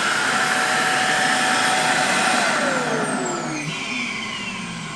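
Roomba vacuum's suction motor running loudly at its dock, then winding down about two and a half seconds in with a falling whine as it spins to a stop.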